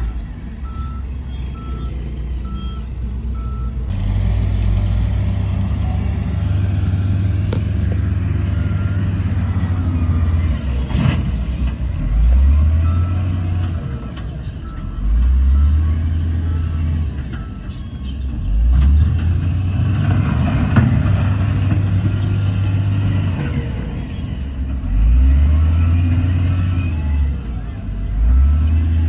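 Heavy diesel earthmoving machinery (bulldozer and dump truck) running in sand, the engine note dipping and climbing again every few seconds. A reversing beeper sounds about twice a second through the first few seconds.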